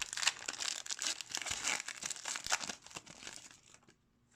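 Foil wrapper of a hockey card pack being torn open and crinkled. The crackling is dense at first and dies away about three and a half seconds in.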